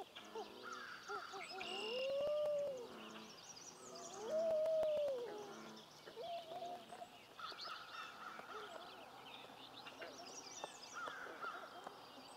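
Common loon giving two clear calls, each about a second long, that rise and then fall in pitch, the second slightly louder, with a few shorter soft calls around them. Songbirds sing high and thin throughout.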